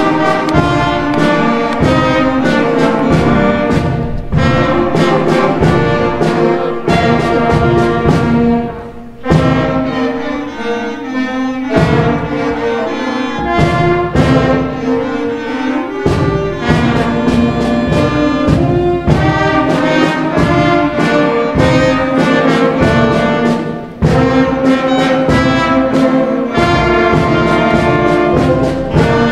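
School concert band playing a piece, with brass such as trumpets and trombones carrying held chords over a steady beat. The playing eases into a softer passage about nine seconds in, then comes back up to full volume.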